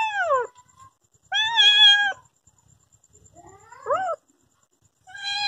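Cat meowing repeatedly: one meow trails off falling in pitch, a second holds steady, a short rising meow comes about four seconds in, and another starts near the end.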